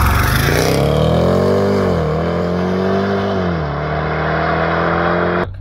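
Jaguar F-Pace SVR's supercharged 5.0-litre V8 pulling away hard from a launch-control start, its note climbing through the revs and dropping at two quick upshifts, about two and three and a half seconds in. The sound cuts off suddenly near the end.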